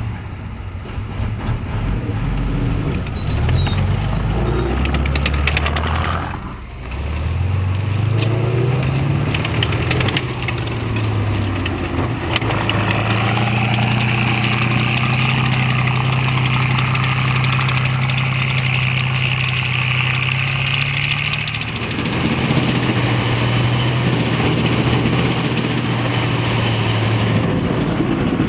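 T-34-85 tank's V-2 V12 diesel engine running hard, its pitch climbing with the revs, dipping briefly and climbing again as if through a gear change. It then holds a steady high note for about ten seconds, drops to a lower steady note, and rises again near the end.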